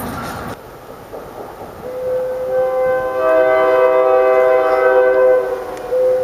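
A diesel locomotive's multi-chime air horn sounding a chord of several notes from an approaching train: a long blast starting about two seconds in, then a brief break and a second blast near the end. Passing-train rumble is heard briefly at the start, cut off abruptly.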